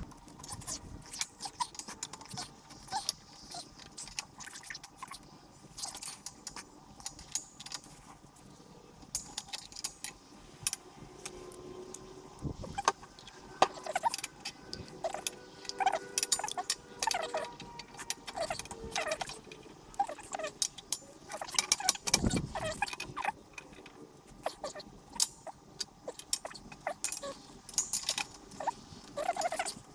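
Metal tools and parts clinking and clicking in irregular sharp ticks, with a couple of heavier knocks, about halfway and about three-quarters through, as a pillowball bushing is pressed into a toe link.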